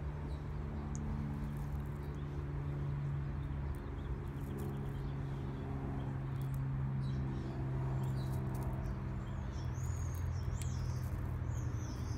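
A steady low mechanical hum, like a motor or engine running in the background, with birds chirping over it from about eight seconds in. A few faint clicks.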